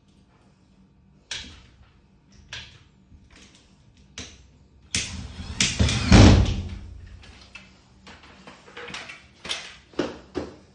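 Knocks and clatter of a metal LED tube lamp casing being handled and adjusted: a few separate knocks, then a louder rattling, scraping stretch about halfway through, then more knocks near the end.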